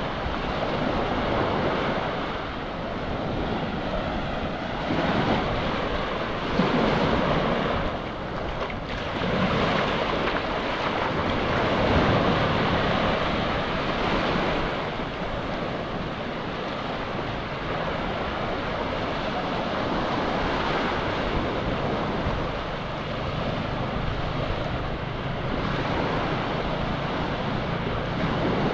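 Sea surf breaking and washing up a sandy beach, rising and falling in uneven swells, with wind buffeting the microphone.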